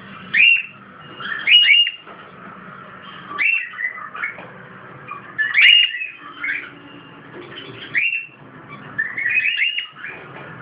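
Cockatiel chirping: about ten short, high chirps spaced a second or two apart.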